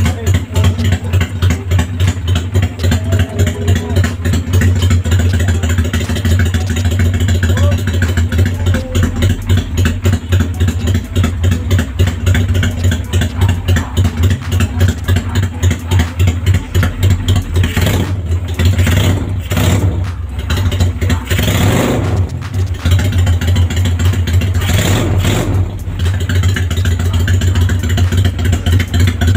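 Suzuki Steed 400 V-twin engine idling steadily with a fast, even beat, run to charge its low battery after an electrical repair.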